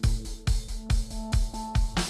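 Background music with a steady drum beat, about two to three kick-drum hits a second under sustained instrumental notes.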